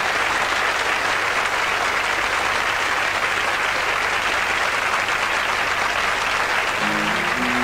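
Studio audience applauding steadily. Near the end, a song's musical intro begins with sustained low notes.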